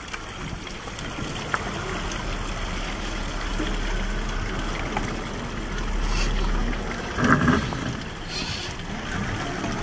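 A Traxxas TRX-6 6x6 RC crawler's electric motor and drivetrain working as it climbs rock, over a steady stream of running water, with a short louder scrabble of the tyres about seven seconds in.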